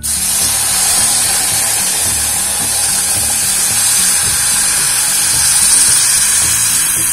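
Warm milk-and-sugar syrup poured onto hot margarine-roasted semolina in a stainless steel pot, hissing and sizzling loudly as it hits the hot fat. The hiss starts at once with the pour and holds steady.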